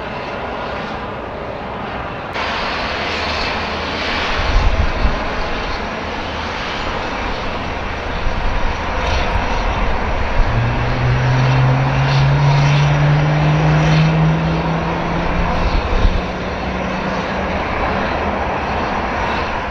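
Airliner jet engines running with a steady loud noise on the apron. About ten seconds in, the TREPEL Challenger 430 towbar tug's engine climbs slowly in pitch as the tug pulls away from the aircraft.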